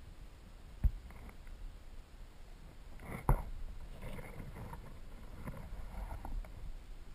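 Underwater sound of a river over a gravel bed, picked up by a submerged camera: a low steady rumble of current with scattered small clicks. There are two sharp knocks, one about a second in and a louder one about three seconds in.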